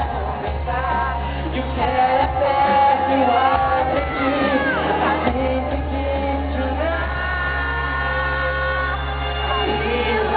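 Live pop-rock band playing with lead vocals singing over a steady bass, heard through a low-quality recording. The last few seconds hold long sustained sung notes.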